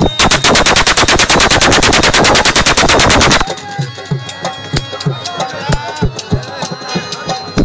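A continuous burst of automatic gunfire, about ten sharp shots a second for some three seconds. After it stops, drumming and singing carry on.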